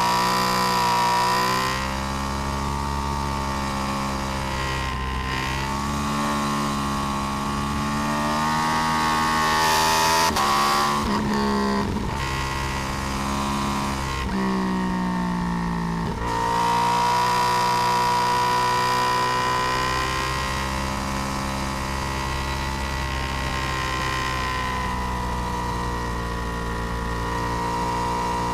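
Yamaha R1 RN22 crossplane inline-four with its uneven 'big bang' firing beat, ridden hard. The revs rise and fall continuously, and they drop sharply a couple of times in the middle stretch. The sound is heard close to the engine and exhaust from a swingarm-mounted camera.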